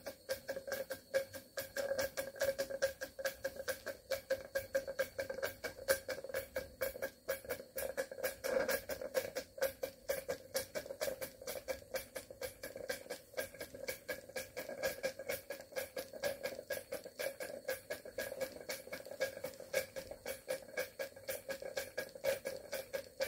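Cotswold Cirrus model steam beam engine running steadily under load, driving a small Baker fan: a fast, even beat of exhaust chuffs, about five or six a second, over a steady hum.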